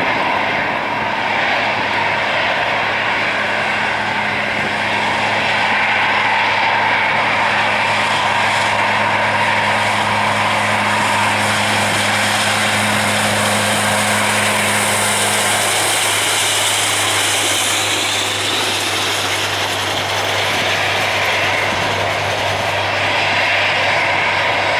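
CFM56 turbofan engines of an Airbus A319-111 running steadily at taxi power, a continuous jet rush with a low steady hum beneath; a second hum an octave above fades out about two-thirds of the way through.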